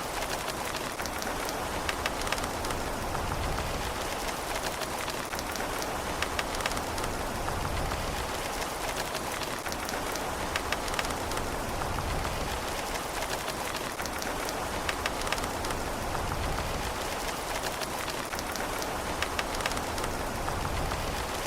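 Steady rain falling, a constant hiss of water with many individual drops ticking sharply on top.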